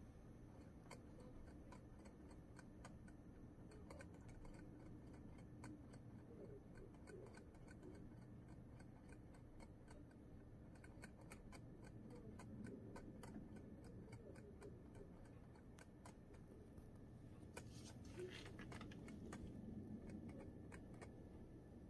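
A hamster drinking from a water bottle's metal sipper tube, its licks making a string of faint, quick ticks.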